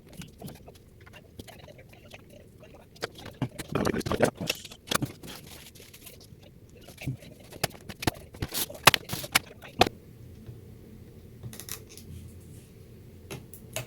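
Small screwdriver backing screws out of a laptop's plastic bottom panel: scattered clicks and taps of metal on plastic, busiest in the middle.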